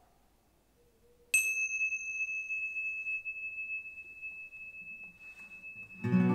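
A pair of small tingsha hand cymbals struck together once, about a second in, ringing one high, clear tone that fades slowly over several seconds. Near the end an acoustic guitar strums a chord.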